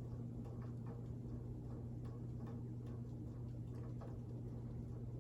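Emerson Casablanca Classic ceiling fan running with a steady low motor hum and faint, light ticking about two to three times a second. The fan wobbles a little because one wooden blade is warped.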